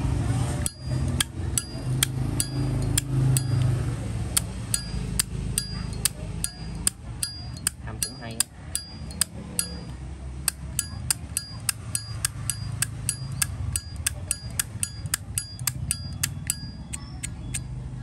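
Brass-cased Zippo lighter's hinged lid flipped open and snapped shut again and again, a few sharp metallic clicks each second, many with a brief high ring.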